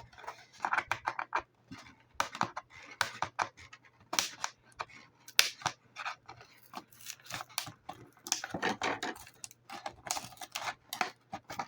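Action figure packaging being worked by hand to free a part from it: irregular sharp clicks, crackles and short scrapes, many in quick runs.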